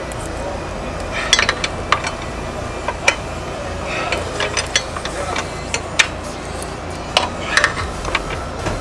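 Spanner clicking and scraping against the clutch master cylinder's mounting bolt as it is tightened a little at a time: irregular light metallic clicks and knocks.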